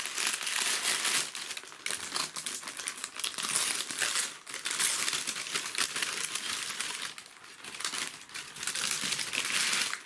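Brown and white packing paper crinkling and rustling as a wrapped plant is unwrapped by hand, with a couple of short pauses.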